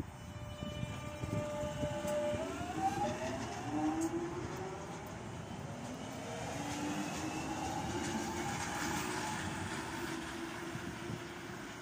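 London Underground 1996-stock Jubilee line train pulling away from the platform. Its traction equipment gives a steady whine that, about two and a half seconds in, starts rising in layered glides as the train accelerates, over the rumble of wheels on rail.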